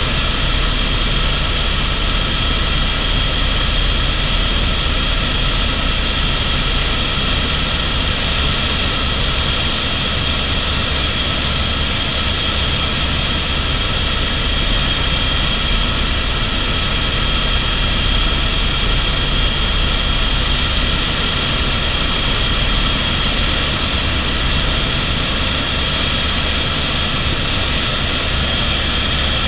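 Cabin sound of an Airbus AS350 (H125) single-turbine helicopter in cruise flight: a steady high turbine whine over the low rumble of the main rotor, heard from inside the cabin.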